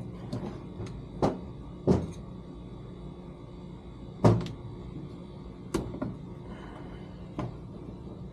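About five sharp knocks and clicks, spread unevenly, of transmission control module parts and tools being handled and set down on a bench, over a steady low hum.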